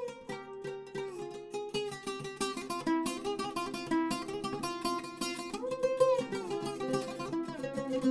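Iraqi oud played solo: a fast run of plectrum-picked notes, with the pitch sliding between some of them on the fretless neck.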